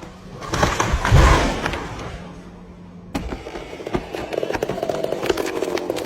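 A loud rushing crash with a heavy low thud about a second in, then a chainsaw running steadily from about four seconds.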